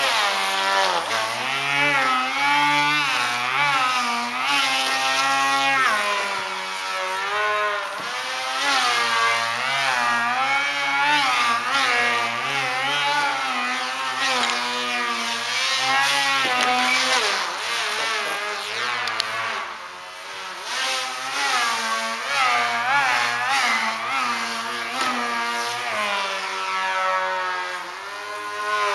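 Electric motor and propeller of a small Nippel 4D indoor aerobatic RC foam plane, whining and constantly rising and falling in pitch as the throttle is worked.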